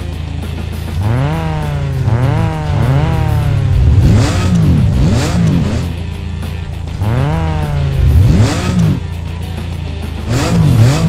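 Cartoon sports-car engine sound effects: engines revving up through the gears, rising and dropping in pitch again and again, with several quick zooming pass-bys, over background music.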